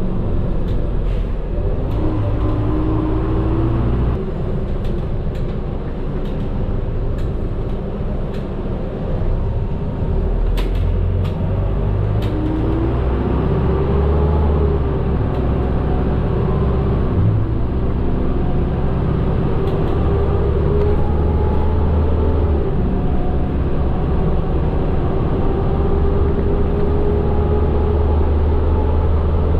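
Medium bus engine running under way, heard from inside the cabin, its drone climbing in pitch and levelling off a few times as the bus pulls away and moves through the gears, with scattered clicks and rattles in the first half.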